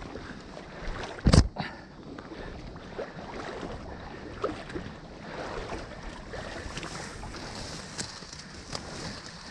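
Dry cattail stems rustling, crackling and scraping as they are pushed through in a reed bed, with one sharp knock about a second in.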